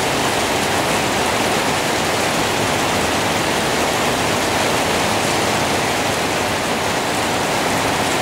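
Heavy rain pouring steadily onto a garden of banana plants and broad leaves: a dense, even hiss.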